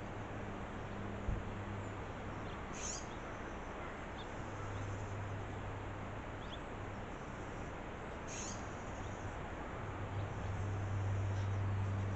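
Outdoor ambience through a trail camera's microphone: a steady hiss with a low hum that swells and fades, and two short high bird calls, about three seconds in and again about eight and a half seconds in.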